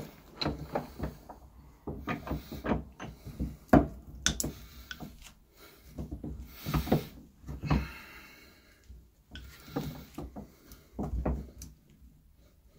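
Small bolt croppers squeezing and chewing at an Otto Lock's strap in several bouts: irregular clicks, creaks and crunches from the jaws and pivots, the loudest snap nearly four seconds in. The jaws are not getting through even the first layer of the lock.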